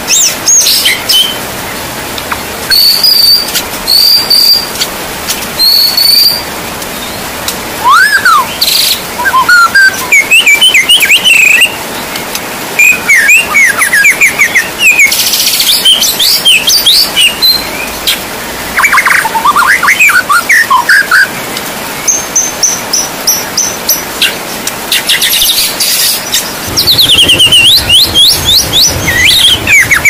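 Steady rain hiss with a songbird singing short, varied phrases of whistles, chirps and quick sweeping trills over it.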